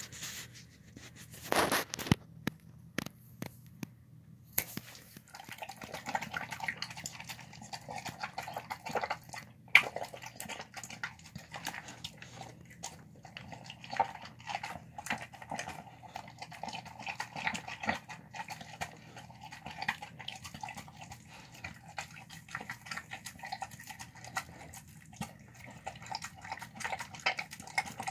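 Dog eating wet food, chicken and brown rice in bone broth, from a plastic tub: rapid, irregular wet chewing and smacking with many small clicks, starting about five seconds in and continuing steadily.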